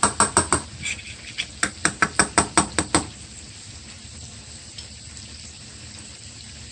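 A spoon clicking against the pot as a garlic butter sauce is stirred, about four quick clicks a second, stopping about three seconds in. Under it and after it, the garlic and spices sizzle steadily in the butter.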